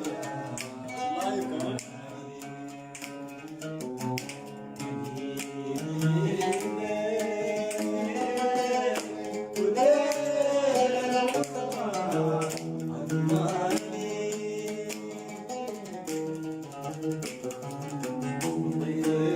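Arabic song playing: plucked-string accompaniment with a melody line that holds notes and glides between them.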